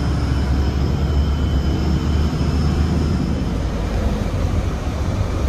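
City bus running, heard from inside the passenger cabin: a steady low engine and road rumble, with a faint high whine over it for the first few seconds.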